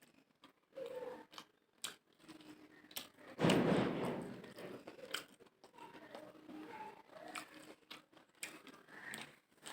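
A person chewing and eating mutton biryani, with many short wet clicks and smacks throughout. About three and a half seconds in there is a louder, noisy burst lasting about a second.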